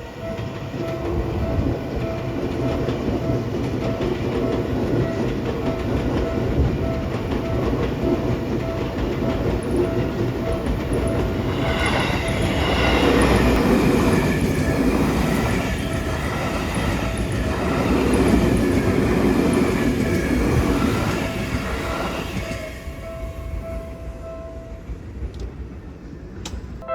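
Seibu commuter electric train passing close by, its running noise building up, peaking in the middle and fading near the end, with the wheels clattering over the rail joints.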